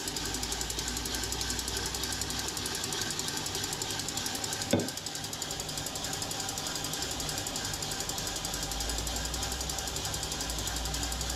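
A beater whisking the eggnog egg mixture in a bowl: a steady, rapid mechanical clicking whir, with one sharp knock about five seconds in.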